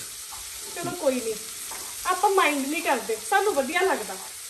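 Sliced onions frying in oil, sizzling steadily as a wooden spatula stirs them around the pan. From about a second in, a voice is heard over the sizzle and is the loudest sound for most of the rest.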